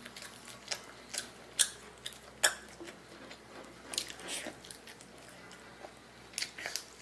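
A person eating roast chicken close to the microphone: chewing and biting, with irregular sharp clicks and wet smacks, two of them louder about one and a half and two and a half seconds in.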